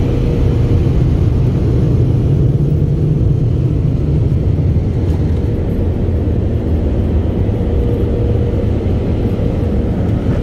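Automatic car wash machinery running, heard from inside the car's cabin: a loud, steady noise, heaviest in the low end, with a faint steady hum.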